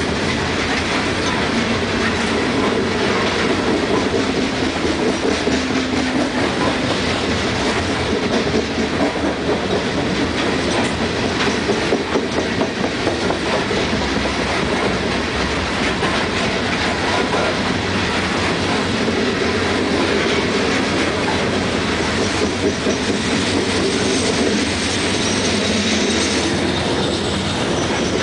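Loaded coal hopper cars of a freight train rolling past in a steady rumble, wheels clicking over the rail joints, with a faint high wheel squeal near the end.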